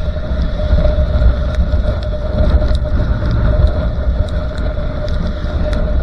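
Onboard sound of a motorcycle riding on a rain-wet road: a steady low rumble of engine and wind buffeting, with a constant mid-pitched drone and a few faint ticks.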